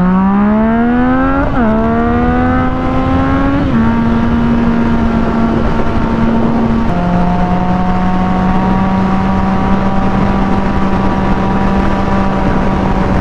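Yamaha FZ-09's three-cylinder engine accelerating hard through the gears: revs climb, drop at an upshift about a second and a half in, climb again, and drop at a second shift near four seconds. It then holds steady revs, steps down at another shift about seven seconds in, and cruises evenly, with steady wind noise.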